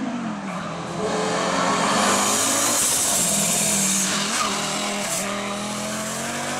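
Audi Quattro A2 Group B rally car's turbocharged inline five-cylinder engine under hard throttle through a hairpin, getting louder about a second in, its pitch dipping and rising with the throttle. Tyres squeal as the car slides through the corner around two to four seconds in, and there is a sharp crack about five seconds in.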